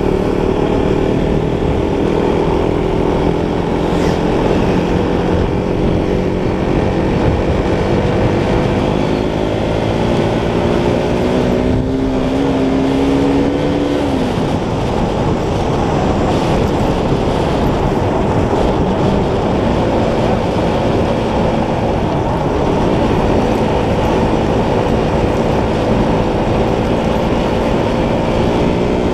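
Motorcycle engine running on the move under a heavy rush of wind noise. The engine note climbs slowly, drops sharply about halfway, then climbs again near the end.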